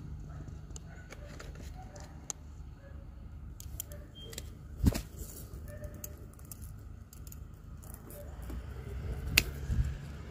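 Metal scissors clicking and snipping purple snap pea pods off the vine: a few sharp metallic clicks, the loudest about halfway through and two close together near the end, over a low steady rumble.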